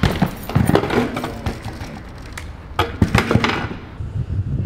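BMX bike riding: tyres rolling with sharp knocks and clanks of the bike hitting and landing, one at the very start, one just under a second in and a cluster about three seconds in.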